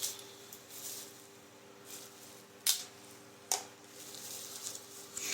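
Packaging being handled and unwrapped by hand, a soft rustling with two sharp clicks a little under a second apart near the middle.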